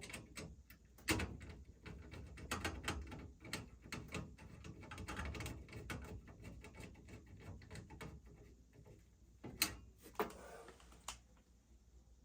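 Hands working with tools and small metal parts on a furnace: an irregular run of clicks, taps and rattles, with sharp knocks about a second in and again near ten seconds.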